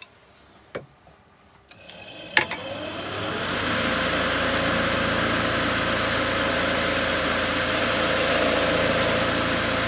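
A sharp click about two seconds in, then an electric wood lathe spins up over about a second and runs steadily. A hand-held lathe knife cuts the spinning wooden spindle, adding a steady rushing scrape of wood shavings coming off.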